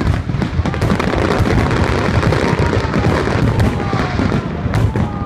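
Aerial fireworks going off in a dense barrage: many shell bursts and crackling pops overlapping with no break.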